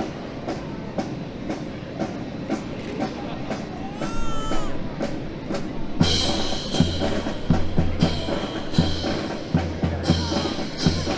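Steady ticking about twice a second, then, about halfway through, loud music with a drum kit and a heavy pulsing bass line starts up.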